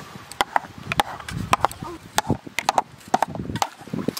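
Metal spoons tapping and scraping against metal bowls in sharp, irregular clicks several times a second, as grated papaya and watermelon are stirred with sugar into a smooth pulp.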